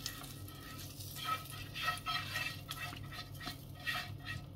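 Meat cooking juices poured from a frying pan into a saucepan of meatballs in tomato sauce: faint sizzling and scraping, with a few light clicks of metal on the pans.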